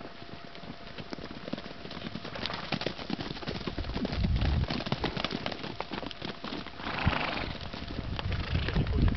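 Hooves of small Sardinian wild horses (Giara horses) clopping irregularly on the ground, thickening from about two seconds in.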